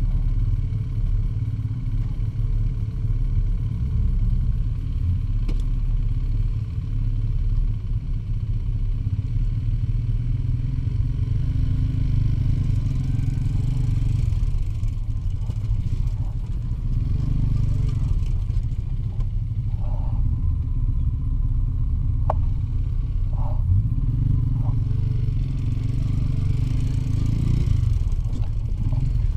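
IZh Jupiter 5 two-stroke twin motorcycle engine running steadily while riding. A few short squeaks come through about two-thirds of the way in.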